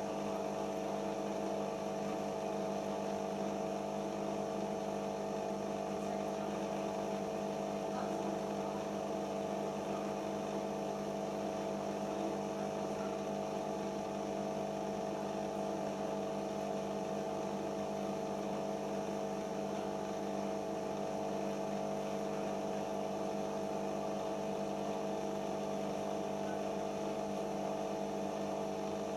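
Siemens iQ 1430 washing machine running through its final-spin stage with the no-spin option selected, giving a steady mechanical hum that holds one pitch with no rise or fall.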